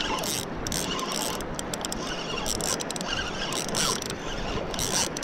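Spinning reel working under the load of a hooked fish: its gears and ratchet sound in short, irregular spurts, many times over.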